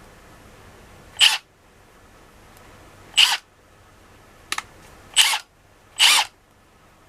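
Milwaukee M12 FUEL compact impact wrench spun up in four short trigger pulls, each whirring for about a quarter second, with a couple of light clicks between the second and third.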